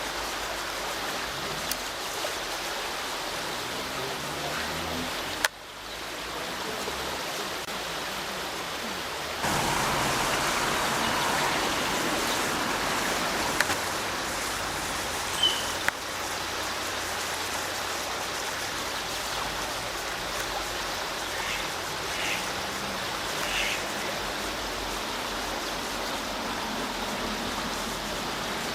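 Steady rushing noise of running water, which drops and jumps abruptly twice in the first ten seconds. A few faint, short high calls sound briefly in the second half.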